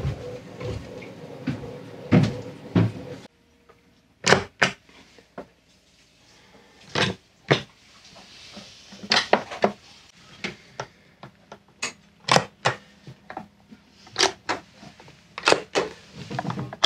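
A few knocks as things are set down, then a long series of sharp clicks and knocks as cabinet drawers are shut and their push-button locks are pressed in.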